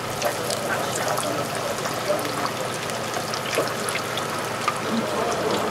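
Hush puppy batter deep-frying in a pot of hot peanut oil: a steady sizzle of bubbling oil with many small crackles and pops.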